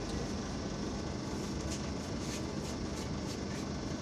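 Steady running noise of a moving passenger train, heard from inside the coach, with a low steady hum under it.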